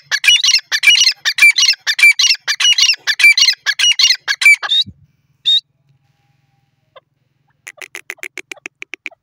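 Grey francolin calling: a loud, fast run of repeated shrill calls for about five seconds, one last note shortly after, then near the end a much quieter, fast series of clicks.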